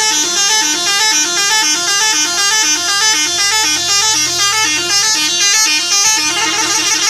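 Bus 'telolet' horn, a set of electric air horns, playing a quick repeating melody of stepping notes. About six seconds in it switches to a faster run of notes.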